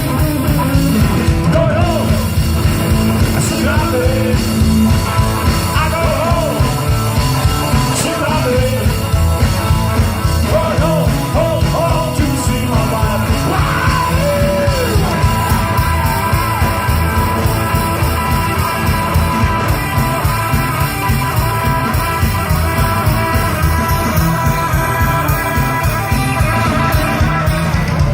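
Live rock band playing with a steady drum beat and guitar, a wavering melody line over the top.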